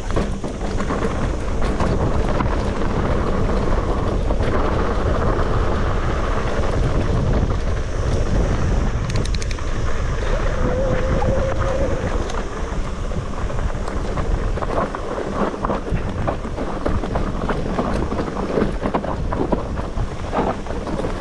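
Wind rushing over the microphone of a camera on a mountain bike riding down a rocky trail, with a steady rumble and frequent small knocks and rattles from the bike going over the stones.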